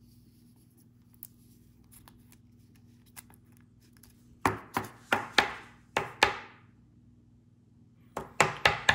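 A series of sharp taps or knocks: about six in a couple of seconds around the middle, then a quicker run of four or five near the end, over a faint steady low hum.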